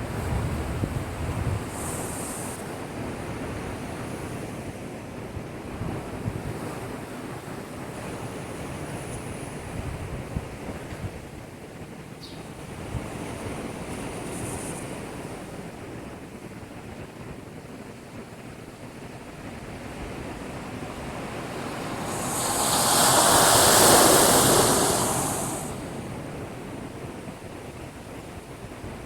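Heavy storm surf from an approaching typhoon washing against a breakwater in a steady rush. Near the end one big wave surges up loud and fades away over a few seconds.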